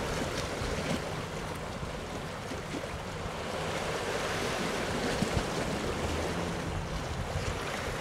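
Wind buffeting the microphone over a steady wash of sea.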